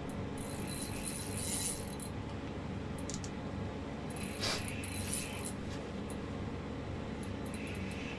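Small rattles and clicks from a handheld ice-fishing rod and reel being worked, with two short stretches of rustling, over a steady low hum.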